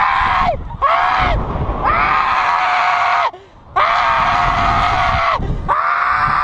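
A man screaming in fright on a slingshot thrill ride. It is a run of about five long, high screams, each lasting one to one and a half seconds, with short gasps between them.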